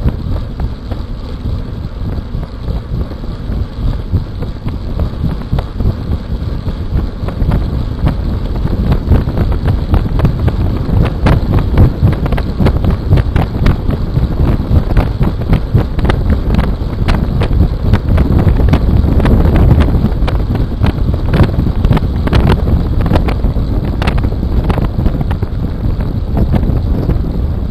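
Wind buffeting a bicycle-mounted camera's microphone at racing speed, over the rumble of tyres on a coarse road surface. It grows louder through the middle as the speed rises toward 53 km/h, with frequent sharp clicks and knocks from the bike over bumps.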